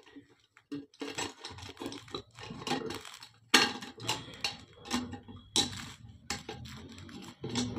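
Irregular metallic clinks and taps of a steel heating-element flange plate being set and shifted on the rim of an electric water heater's tank, the sharpest knock about three and a half seconds in.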